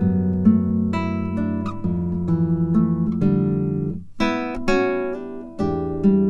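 Background music: acoustic guitar playing a run of plucked notes and chords, with a short pause about four seconds in.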